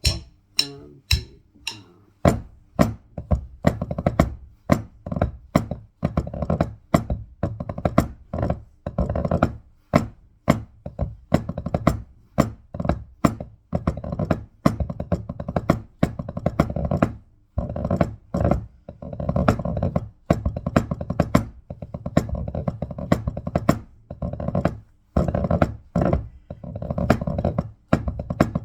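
Pipe band-style snare drumming of a reel: fast, crisp strokes and short rolls in a driving rhythm, starting with a few separate hits before the full pattern begins about two seconds in.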